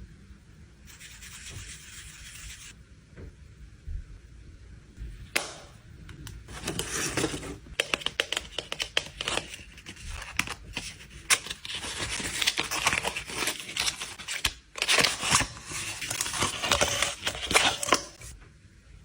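Packaging being unwrapped and torn open: crinkling and tearing, dense and continuous from about six seconds in until just before the end, after a brief hiss and a single sharp click.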